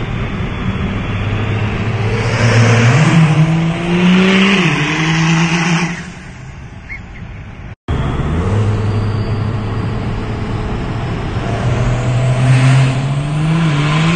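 Third-generation Ram pickup's engine accelerating, its note climbing with a brief dip about four and a half seconds in as it shifts gear. It then drops away and cuts off for a moment, and picks up again, the pitch climbing steadily.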